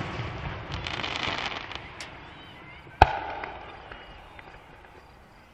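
Aerial fireworks display: the fading tail of a shell burst with a dense crackling of stars, then a single sharp bang of another shell bursting about three seconds in, fading over a couple of seconds.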